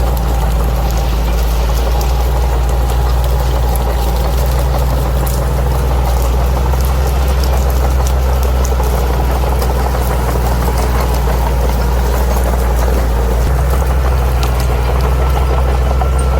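Bulldozer's diesel engine running steadily, with scattered light clicks and rattles over it. The engine note shifts slightly near the end.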